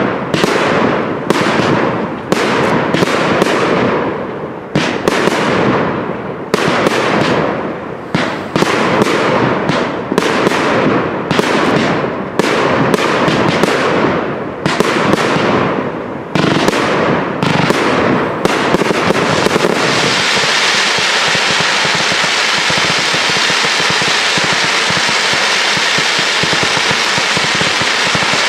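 Fireworks display: a rapid series of aerial bursts going off, about one to two bangs a second, each trailing off in a fading crackle. About twenty seconds in the bangs stop and a steady hiss of rising comets takes over.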